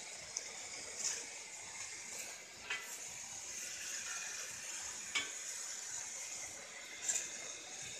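Milk boiling in an open steam-jacketed mawa kettle, making a steady sizzling hiss, while a long paddle stirs it. The paddle knocks and scrapes against the pan a few times.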